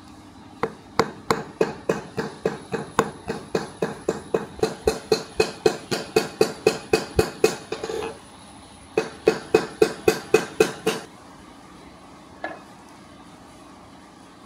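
Hammer blows on hot steel at the anvil, a steady rhythm of about three ringing strikes a second. The blows stop around eight seconds in, then resume for a shorter run of about eight strikes, followed by one lone knock.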